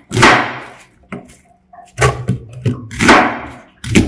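Kitchen knife cutting through an onion on a plastic cutting board: four cuts with pauses between, each a sharp stroke that dies away quickly.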